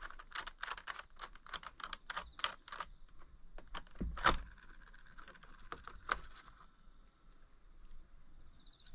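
Rapid light clicks and rattles as the parts of a STIHL MS 194 TC chainsaw are handled and worked, with one louder knock about four seconds in and a few more clicks near six seconds. A faint steady high insect drone sits underneath.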